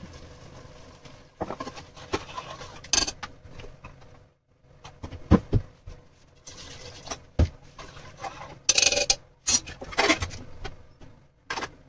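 Water poured into an aluminium pressure cooker, then scattered metal knocks and clatters as the pot and its lid are handled and the lid is fitted.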